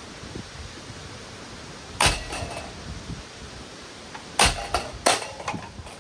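Three hard blows struck on a Hunter Summer Breeze ceiling fan as it is smashed apart: one about two seconds in and two close together near the end, each followed by a short clattering rattle of loose parts.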